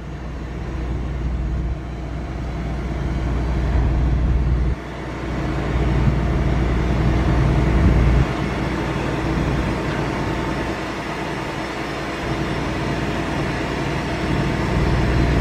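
Steady low machinery rumble from a Ro-Ro passenger ferry with a faint steady hum, as its stern vehicle ramp is hoisted up. The level steps up and down abruptly a few times, about five and eight seconds in.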